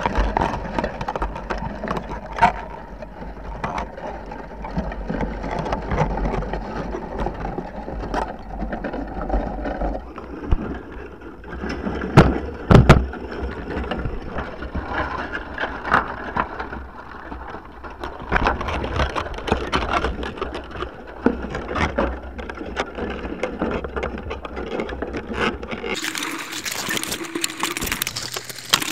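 Dungeness crabs and a wire crab pot knocking and rattling against a GoPro housing. Irregular clicks and knocks run throughout, with two loud knocks about twelve seconds in. A hiss starts near the end.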